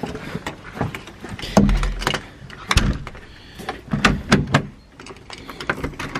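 Glazed front door being opened and pulled shut: a series of sharp handle and latch clicks and knocks, with two heavier thumps between about one and a half and three seconds in.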